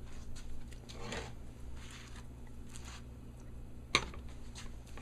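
Soft kitchen handling sounds over a low steady hum: light rustling about a second in and one sharp click about four seconds in, the loudest moment.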